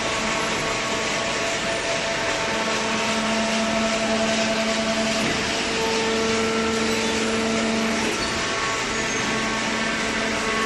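Hydraulic cardboard baler running: steady machine noise with a pitched motor-and-pump hum that grows stronger from about two seconds in and eases off around eight seconds.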